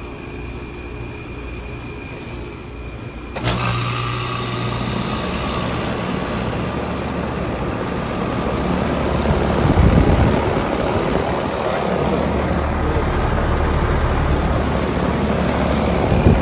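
A 2016 Rheem Classic heat pump's outdoor unit, which is fairly quiet at first. About three seconds in it kicks in abruptly with a loud rush of noise and a low hum, then keeps running, growing louder around ten seconds in, in the course of its startup and defrost cycle.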